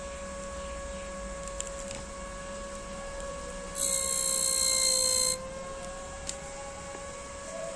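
AVC B6015807MY 60 mm sleeve-bearing cooling fan from a Sony PS2, running with a steady whine. About four seconds in, a loud high-pitched buzzing rattle lasts about a second and a half as a fingertip touches the spinning blades, and the whine dips slightly in pitch while the fan is held back.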